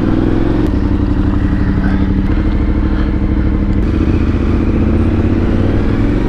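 Yamaha Ténéré 700 adventure motorcycle's parallel-twin engine, fitted with a Mivv Dakar exhaust, running steadily at a nearly constant pitch, recorded close up from on board the bike.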